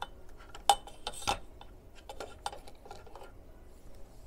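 Handling noise: a few sharp clicks and knocks of hard objects being moved and adjusted, the two loudest within the first second and a half, then a run of fainter clicks.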